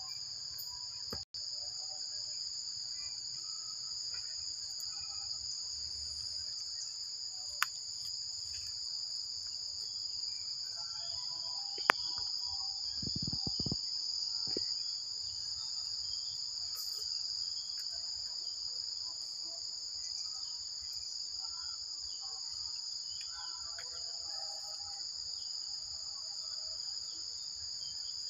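Steady, high-pitched insect chorus, two close tones held without a break. A few sharp clicks, the loudest about twelve seconds in, and a brief low rumble about a second later.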